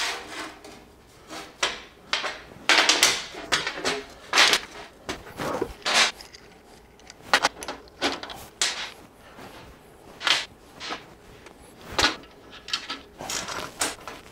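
Metal parts being handled on a steel welding table: an irregular string of short knocks, clinks and scrapes as a threaded clamp bolt and a steel flat bar are set down and moved about.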